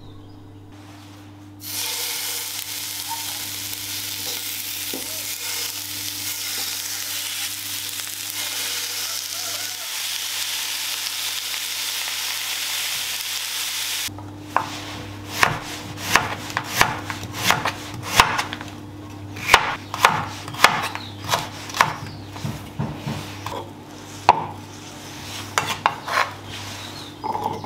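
Chicken rump pieces pan-frying, a steady sizzle for about the first half. Then, after an abrupt change a little past halfway, a kitchen knife chops beetroot on a wooden cutting board: irregular sharp knocks, one or two a second. A steady low hum runs underneath.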